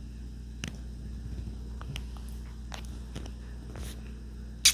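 Quiet room tone with faint, scattered soft clicks and taps, and one sharper click near the end.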